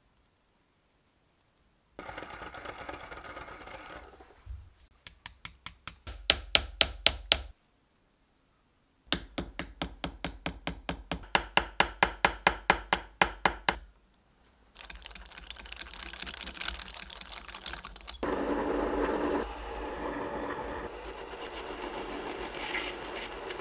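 Small hammer tapping a brass rod on a steel anvil in two quick runs of sharp metallic taps, about four to five a second, peening it into a turned brass handle. From about 15 s comes a steady whirr and scrape as a small lathe turns a brass part against a hand graver.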